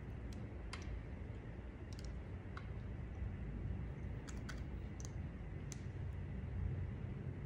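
Light, irregular clicks of a lipstick case being handled and its cap taken off, several over the first six seconds, over a low steady hum.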